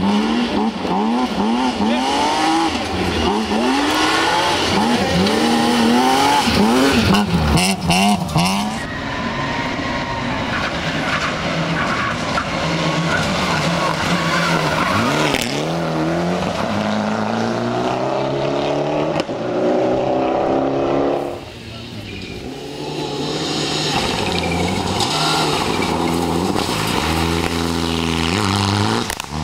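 Rally cars' engines revving hard as they pass on the special stage, pitch climbing and dropping again and again through gear changes and lifts. The sound changes abruptly about nine and twenty-one seconds in, as one car gives way to another.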